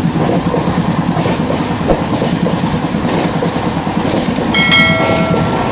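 Train running along the track, heard from a carriage window: a steady rumble of wheels and carriage. A couple of clicks come late on, and about four and a half seconds in a short bright chime rings over the rumble for about a second.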